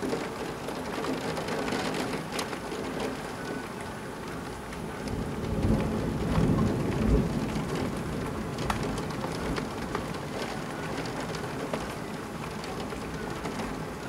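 Thunderstorm: steady heavy rain, with scattered sharp drops tapping close by, and a low rumble of thunder that swells about five seconds in and dies away a few seconds later.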